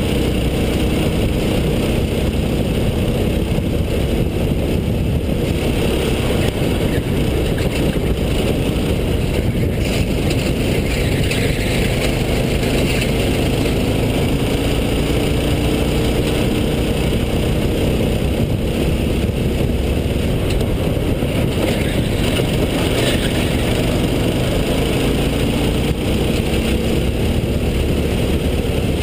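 Racing go-kart engine running at speed, its pitch rising and falling again and again as the kart speeds up and slows through the corners.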